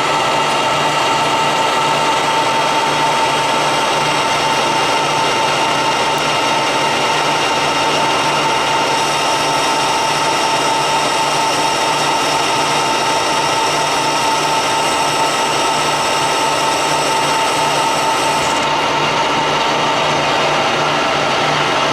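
Clausing Colchester 15x50 engine lathe running steadily at 840 RPM, its headstock gearing giving a constant whine with a clear high tone, while the tool takes a smooth turning cut along the part under power feed. Some of the highest tones shift about nine seconds in and drop away near the end.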